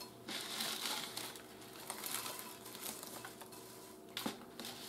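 Dry spaghetti sliding out of a tall jar into a plastic-lined crockpot: a faint rustling and crinkling of the stiff noodles against the plastic liner, with a sharper click about four seconds in.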